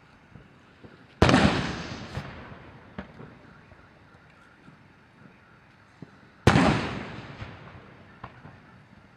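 Ceremonial gun salute: two loud booms about five seconds apart, each echoing away over a second or two.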